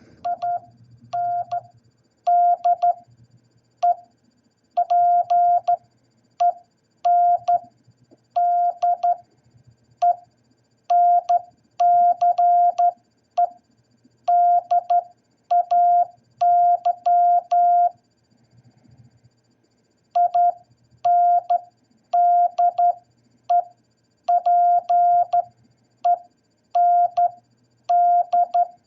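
Morse code sent as a single steady mid-pitched beep, keyed on and off in short dots and longer dashes grouped into letters, spelling out 'Independence Day'. A longer pause about two-thirds of the way through breaks the sequence.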